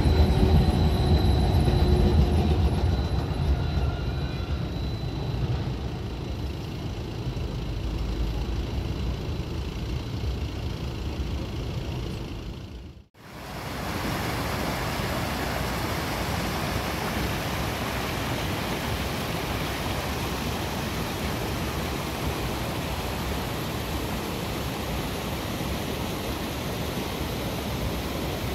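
A tram passing close by: a heavy running rumble with a faint high whine that fades away over about ten seconds. After a sudden cut, a steady even hiss of background noise.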